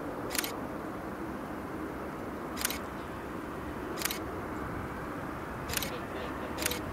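Five camera shutter clicks at uneven intervals over the steady rumble of an Airbus A321's jet engines at idle as it taxis.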